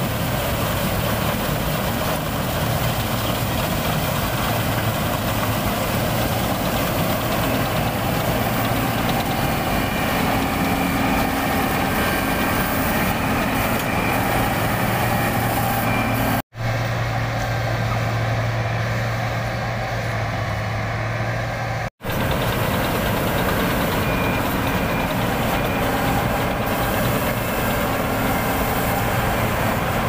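New Holland 8070 combine harvester running steadily as it cuts rice: a continuous engine drone with a low hum. The sound drops out for an instant twice, a little past halfway and again about five seconds later.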